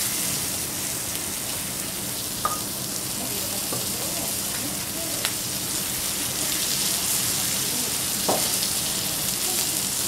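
Chicken and pork sizzling on a hot steel teppanyaki griddle, a steady frying hiss, with three brief sharp clicks along the way.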